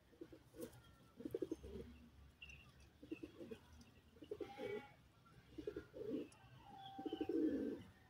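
Domestic pigeons cooing in about six short, pulsing bouts, the loudest near the end, with fainter, higher bird chirps in between.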